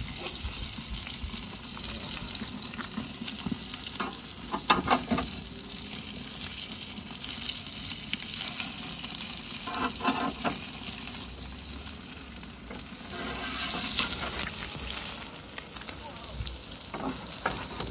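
Ribeye steak fat sizzling and spitting on a very hot cast-iron Grizzler plate, the fat rendering fast enough to feed a flare-up. A few short knocks come about five and ten seconds in, and the hissing grows louder for a couple of seconds about three-quarters through.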